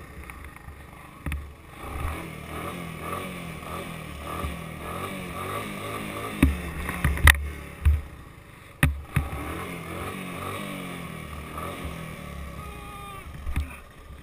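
Honda three-wheeler's single-cylinder engine revving up and down under the rider, with wind buffeting the helmet camera's microphone. A few sharp knocks stand out about halfway through.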